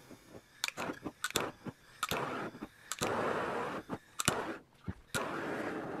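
Hand-held propane torch on a Coleman propane cylinder being relit: its igniter clicks sharply a dozen or so times, with stretches of hissing gas between the clicks.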